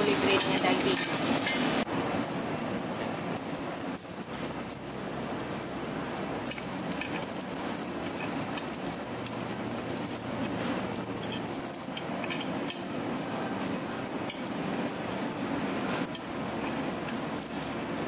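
Shredded cheese and meat sizzling on a hot Korean barbecue grill plate, a steady hiss.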